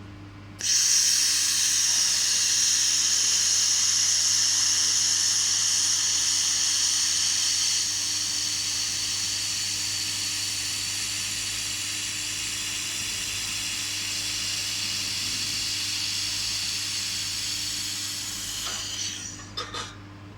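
Handheld fiber laser welding gun in use, giving a loud steady hiss of shielding gas and welding. The hiss starts suddenly about half a second in, eases slightly partway through, and stops with a few sputters near the end, over a constant low hum from the machine.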